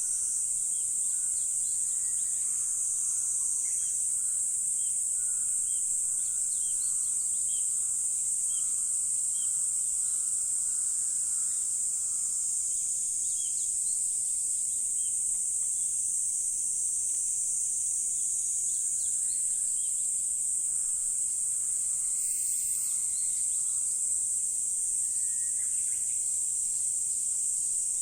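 Steady, high-pitched insect chorus, with scattered short bird chirps faintly beneath it.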